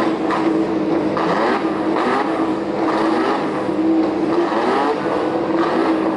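Several racing touring car engines running together, idling with repeated throttle blips that rise and fall in pitch.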